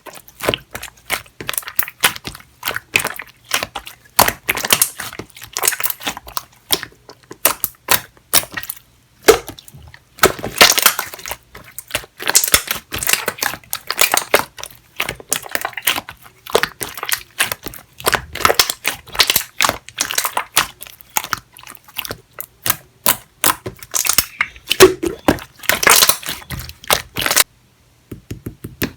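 Clear jelly-textured slime being squeezed and pressed by hand, making dense, irregular wet clicks and crackling pops with brief pauses.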